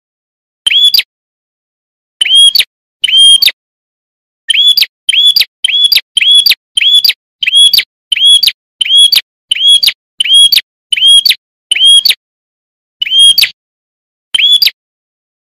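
Prinia (prenjak) repeating one short, sharp call over and over, about two a second in runs with brief pauses, each note a quick rise and fall in pitch.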